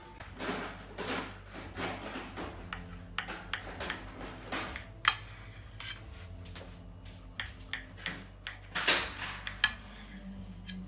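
Knife cutting through a baked custard flan on a plate: short scraping strokes and sharp clicks as the blade meets the plate, the sharpest about halfway through and a cluster near the end.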